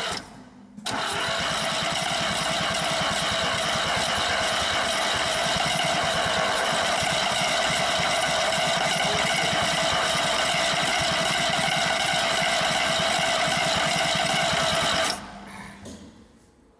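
Classic Lada inline-four engine turned over on its starter motor without firing. A short spell of cranking breaks off for about half a second, then the cranking runs steady and evenly for about fourteen seconds before stopping near the end. That sound is taken as a sign that there might not be any more compression, the soft polyurethane pistons having failed.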